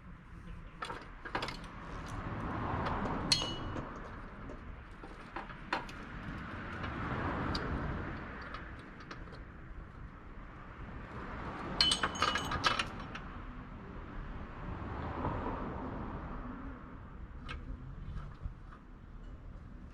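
Metal tools and parts clinking and knocking now and then, with a cluster of bright clinks about two thirds of the way through, between stretches of rustling handling noise.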